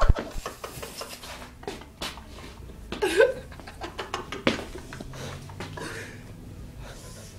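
Phone handling noise, a run of clicks and rustle, then a man's short wordless vocal call just after three seconds in, followed by a few fainter breathy sounds.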